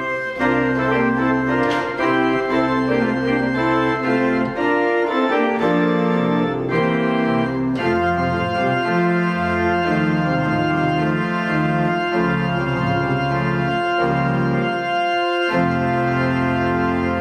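Martin Ott tracker (mechanical-action) pipe organ playing a hymn-based piece. Moving chords sound over a deep pedal bass, and near the end it settles into one long held chord.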